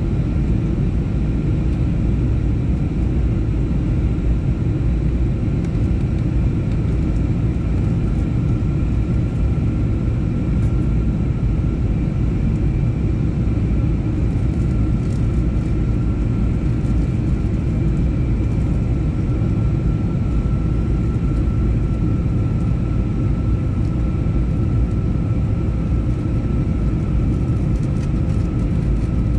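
Cabin noise inside an Airbus A321neo airliner during its approach to land: a steady low rumble of airflow and engines, with a faint steady whine above it.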